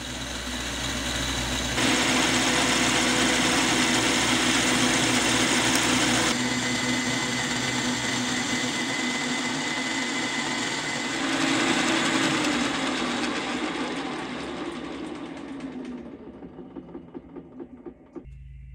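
Milling machine running with an end mill cutting the stepped face of a metal block: a steady machining noise with a whine over a low hum. It changes abruptly about two and six seconds in and dies away over the last few seconds.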